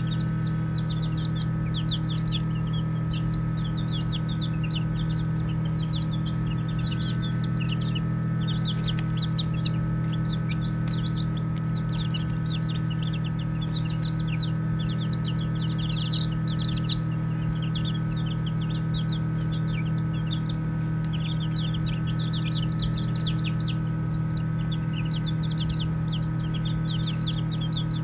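A group of baby chicks peeping continuously, many short high peeps overlapping, each a quick falling note. A steady low hum runs underneath.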